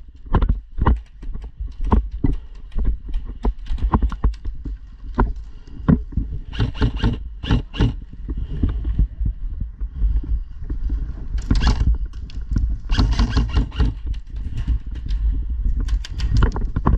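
Irregular knocks and clicks, a few a second, over a steady low rumble, with denser, louder runs about a third of the way in and again past the middle.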